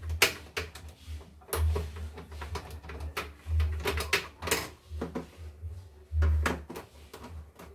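Screwdriver and hands working on the plastic housing of a small embroidery machine: irregular clicks, taps and scrapes, with a dull low rumble coming and going underneath.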